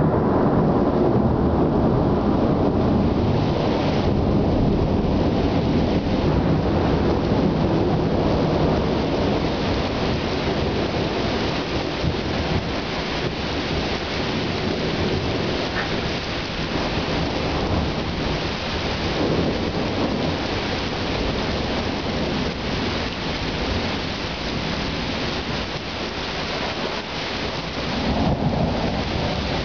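Thunder rumbling through a violent thunderstorm, with heavy rain. The opening rumble fades over the first several seconds while the rain hiss grows, and another rumble of thunder swells near the end.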